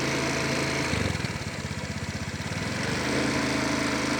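A small engine idling. For about two seconds in the middle its steady hum gives way to a looser, pulsing beat, then it settles back.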